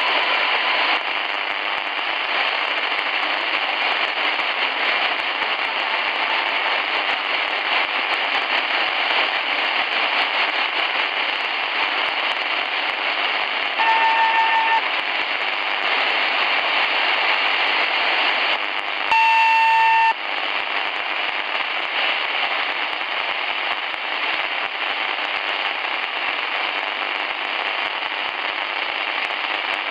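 Tecsun PL-450 shortwave receiver tuned to 2132 kHz, giving steady static hiss with light crackle. Two short beeps come about five seconds apart in the middle, the second louder.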